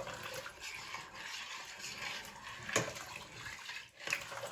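A spoon stirring a pot of lentil soup: the liquid swishes and slops, with a couple of light knocks of the spoon against the pan.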